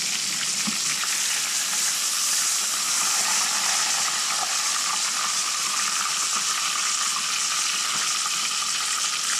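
Battered fish fillet deep-frying in hot oil in a stainless steel pot: a steady sizzle.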